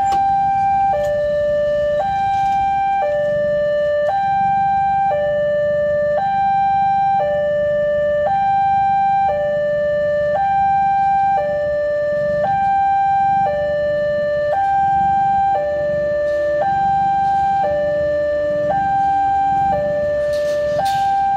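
Railway level-crossing warning alarm sounding from its horn loudspeaker: an electronic two-tone signal alternating a higher and a lower note, each held about a second, over and over. It is the warning that a train is approaching and the crossing is closed. A low rumble lies beneath it.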